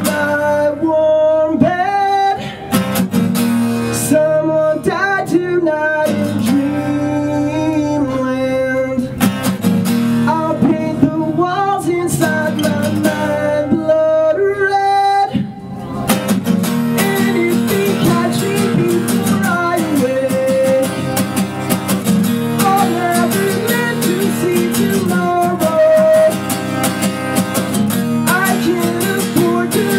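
A man singing a rock song while strumming an acoustic guitar, solo with no other instruments.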